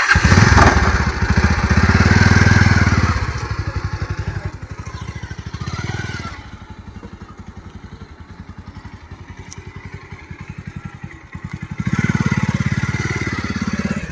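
A 150 cc motorcycle's engine starts at once and is revved for a few seconds. It settles to a steady idle, with a short blip about six seconds in, and is revved again near the end.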